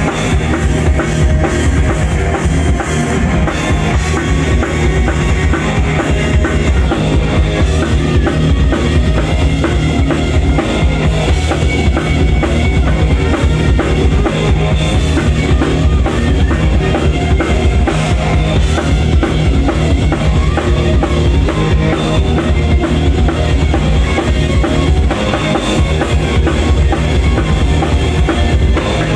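Live hard rock band playing at full volume: a drum kit pounding out a fast beat on bass drum and snare, with electric guitars and bass guitar.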